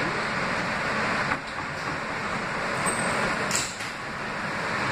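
Steady running noise of an R160B subway car heard from inside the car: wheels on rail and car rumble, with a brief high hiss about three and a half seconds in.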